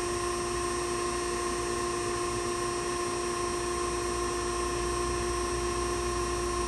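Okamoto ACC-1632DX hydraulic surface grinder running with its grinding wheel spindle and hydraulic pump on: a steady machine hum with a few constant whining tones. The spindle runs smoothly, a sign it is in good shape.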